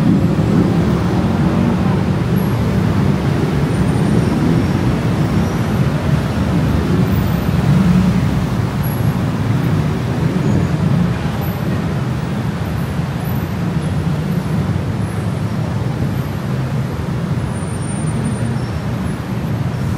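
Busy street traffic: a steady rumble of cars and motorbikes passing, a little louder in the first half and easing off somewhat after about eleven seconds.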